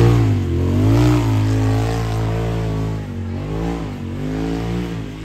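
Side-by-side UTV engine revving hard, its pitch rising and falling over and over as the throttle is worked, loudest at the start and easing off somewhat toward the end.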